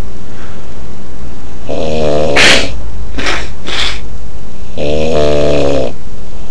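A man snoring loudly: two long buzzing snores about three seconds apart, with three short hissing bursts of breath between them.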